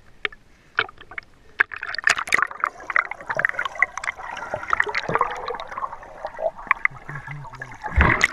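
Lake water splashing and bubbling around a GoPro held at water level beside a swimming German Shepherd. The camera goes under, and after about two seconds the sound thickens into a dense crackle of bubbles and churned water. A heavy splash comes near the end as it breaks the surface.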